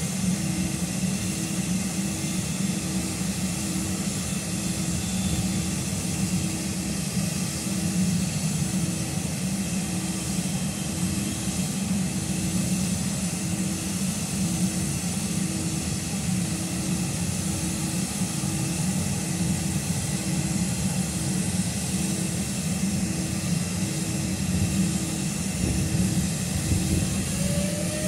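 Electric multiple unit standing at the platform, its onboard equipment giving a steady hum, with a regular pulsing tone about one and a half times a second. Near the end a set of rising whines starts as the train's traction motors begin to pull it away.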